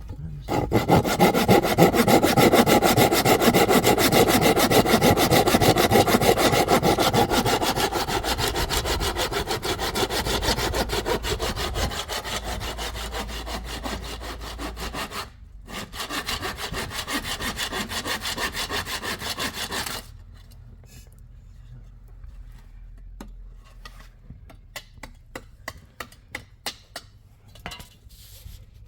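Wood being sawn in a long run of rapid, even strokes that break off briefly about halfway and stop about two-thirds of the way through, followed by scattered light taps and clicks.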